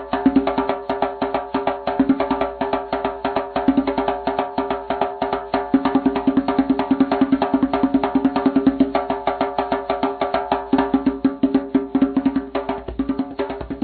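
A fast, steady run of pitched wooden percussion strokes, several a second, keeping an even level throughout.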